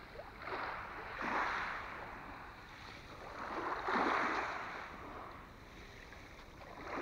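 Small waves lapping on a pebble beach: a soft wash of water swells and fades about a second in, and again, louder, around four seconds in.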